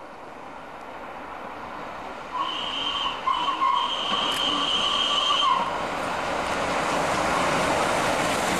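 Steam locomotive whistle sounding a short blast and then a longer one, over the noise of the locomotive and its coaches approaching, which grows steadily louder toward the end.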